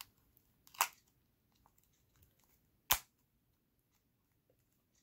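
iPod Classic's metal back case being pressed onto the front shell and snapping shut: a smaller click about a second in, then one sharp snap about three seconds in as the clips catch, with faint handling ticks around them.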